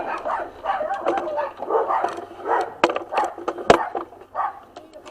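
A dog barking repeatedly in short bursts, with a couple of sharp metallic clicks near the middle.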